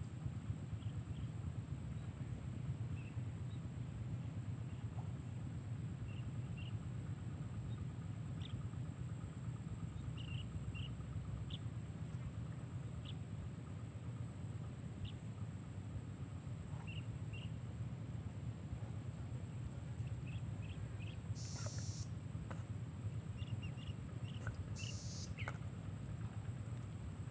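Outdoor ambience at a reedy pond: scattered short bird chirps over a steady low rumble and a constant thin high-pitched tone, with a couple of brief hissing bursts a little past the middle and near the end.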